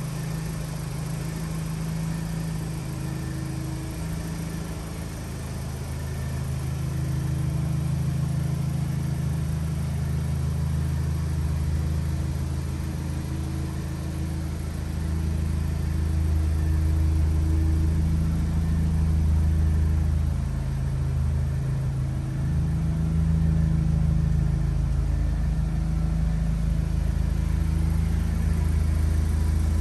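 Vauxhall Astra engine idling steadily, a low hum that swells slightly now and then.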